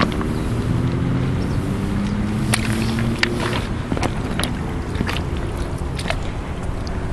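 Footsteps wading through shallow river water over loose gravel, with sharp clicks of stones knocking underfoot several times in the second half. A low hum of several pitches sounds under it for the first few seconds.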